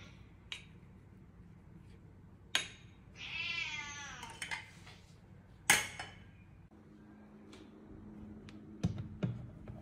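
A domestic cat meows once, a drawn-out meow about three seconds in. Around it come a few sharp clinks of a spoon on a ceramic bowl of wet cat food, the loudest just before six seconds, and a couple of knocks near the end.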